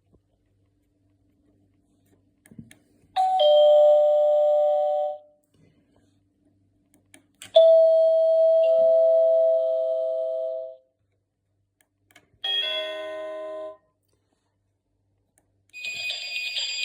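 A new doorbell sounding four different chimes in turn. The first three are pitched chimes, one to three seconds long, and the third is cut off short. Near the end comes a rapid, high, trilling ring.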